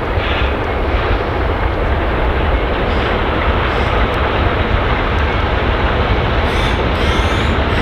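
Steam train led by Victorian Railways Y class locomotive Y112 working towards the camera, its exhaust making a steady, dense roar over a heavy low rumble.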